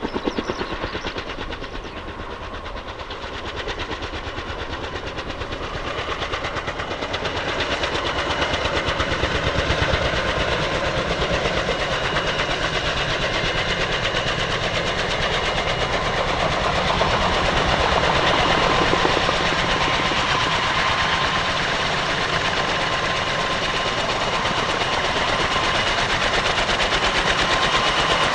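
Kaman K-MAX helicopter at a hover, its intermeshing twin rotors beating in a rapid, even rhythm over the steady whine of its turboshaft engine. The sound grows louder over the first several seconds, and the whine turns clearer about halfway through.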